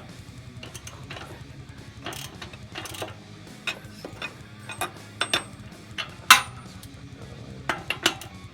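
Wrench on a Harley-Davidson Sportster 883's rear axle nut, ratcheting in uneven clicks with metal tools clinking, as the wheel is taken off. A steady low hum runs underneath.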